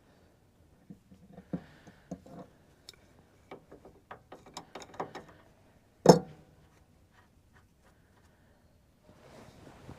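Hand tools being handled: a run of irregular clicks and knocks, then one louder knock about six seconds in.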